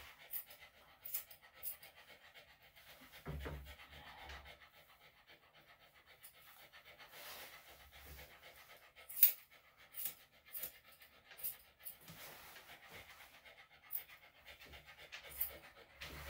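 Senior Bichon–Shih Tzu dog panting, with short sharp snips of grooming scissors as the hair around its paw is trimmed.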